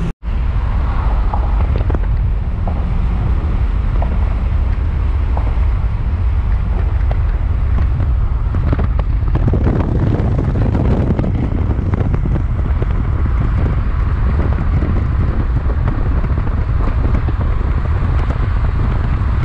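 Steady low rumble of a moving vehicle with wind buffeting the microphone, starting right after a brief cut at the start.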